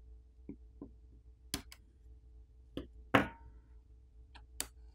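A handful of small, sharp clicks and taps from a pry tool and fingers working a phone's coaxial antenna cable off its snap-on connector and freeing the cable. The two loudest clicks come about one and a half seconds in and about three seconds in, and a few lighter ticks come before and after them.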